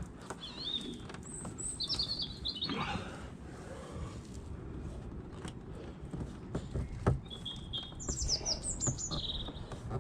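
Small songbirds chirping in two bouts of quick, high chirps, one starting about half a second in and another near the end, with a single sharp knock about seven seconds in.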